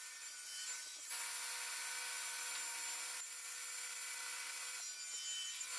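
Benchtop table saw running with a steady whine and cutting through wood. The cutting noise grows louder about a second in, eases off around the middle, and rises again near the end.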